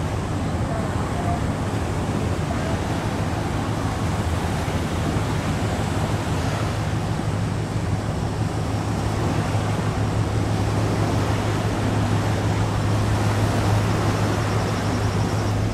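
A boat's engine hums steadily and low under a haze of wind and water noise. The hum grows a little stronger near the end.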